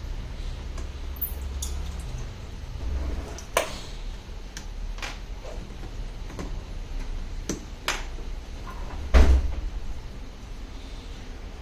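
Scattered light clicks and knocks of objects being handled and set down, with one heavier thump about nine seconds in, over a steady low rumble.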